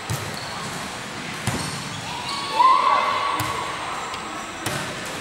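A volleyball rally in an echoing sports hall: several sharp hits of hands and arms on the ball, with a loud shout about halfway through.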